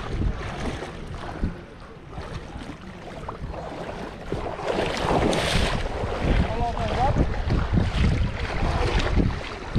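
Wind buffeting the microphone in gusts over the sound of water at the lake's edge.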